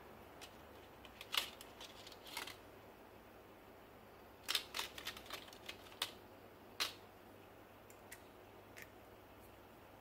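Scattered sharp clicks and taps of a pen-style precision screwdriver and its small metal bits being handled as a bit is taken from its plastic bag and fitted. The loudest run of clicks comes about halfway through, then a few lighter ticks.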